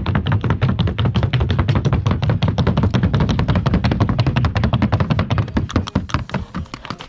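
A paso fino mare's hooves striking a plywood board in the fast, even paso fino gait: a rapid unbroken run of sharp wooden taps that thins out and fades near the end.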